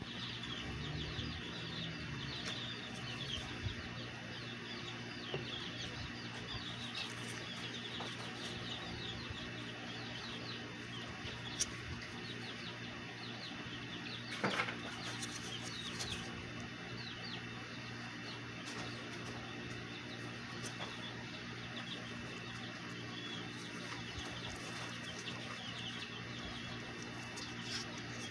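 Many small, quick chirps over a steady low hum, with a few sharp clicks near the middle.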